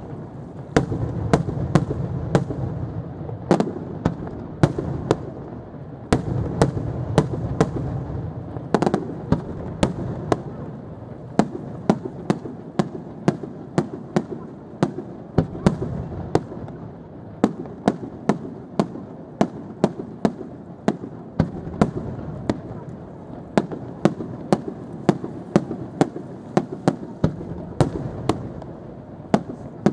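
Aerial fireworks display: a rapid, unbroken string of sharp shell bursts, two or three bangs a second, over a continuous low rumble of overlapping reports.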